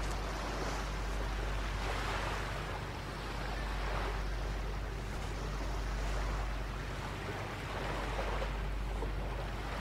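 Sea surf: waves breaking and washing onto the shore in swells every couple of seconds, over a steady low rumble.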